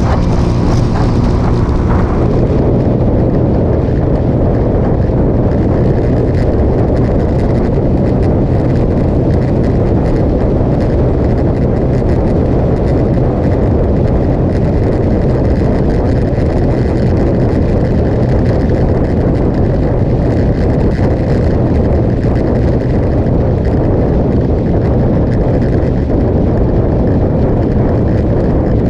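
Motorcycle cruising at steady road speed: engine and road noise mixed with loud, steady wind buffeting on the microphone.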